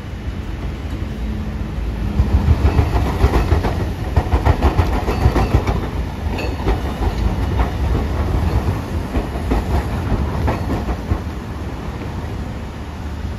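Hiroshima Electric Railway low-floor articulated tram passing close by, its wheels clattering over the rails and crossing work with a quick run of clicks over a low rumble. The clatter builds a couple of seconds in and fades near the end.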